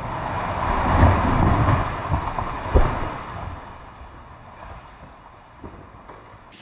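Wind gusting across the microphone, building to its loudest about a second in with a few low bumps and a sharp one near three seconds, then dying away.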